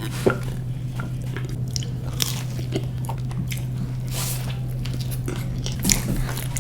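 Close-up eating sounds: crunchy bites and chewing of fried street food, in short irregular crackles, over a steady low hum.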